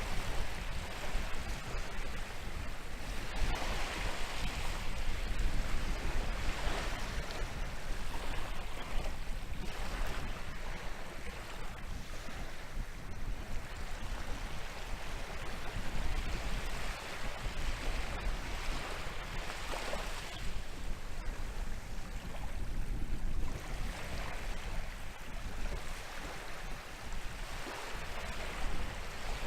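Atlantic waves breaking and washing up the shore, each swell of surf rising and falling every few seconds, over a steady low rumble of wind on the microphone.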